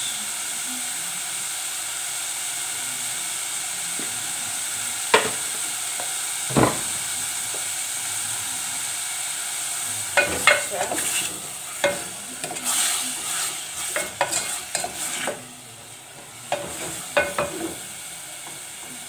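Button mushrooms and onions sizzling in oil in a metal pot, a steady hiss with two sharp knocks about five and six and a half seconds in. In the second half a wooden spoon scrapes and knocks against the pot as they are stirred.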